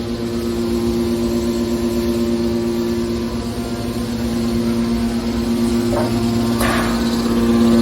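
Hydraulic scrap-metal baler running, its motor and pump giving a loud, steady hum. There are two brief noises about six seconds in.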